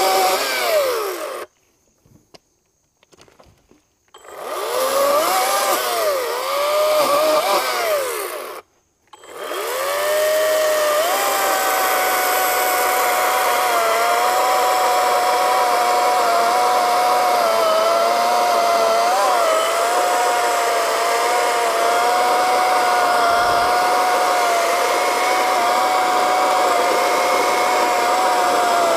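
Harbor Freight Atlas 40V brushless battery chainsaw cutting through a log. Its whine dips in pitch and recovers as it works, stops briefly twice early on (about 1.5 s and 9 s in), then runs steadily through one long cut.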